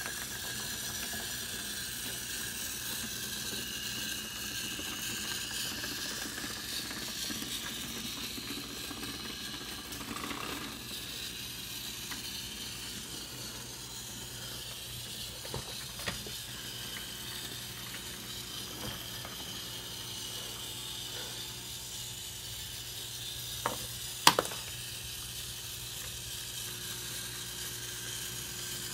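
Battery-powered GeoTrax toy train running along plastic track, its small motor giving a steady whine under a hiss. A few sharp clicks cut in, one about 16 seconds in and two close together about 24 seconds in.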